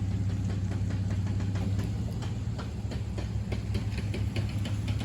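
A vehicle engine running at a steady idle, a low even hum, with scattered light ticks and taps over it from about two seconds in.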